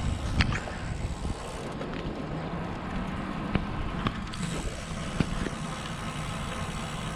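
Wind buffeting the microphone over the rolling noise of a road bike, a steady low rumble with a few sharp clicks.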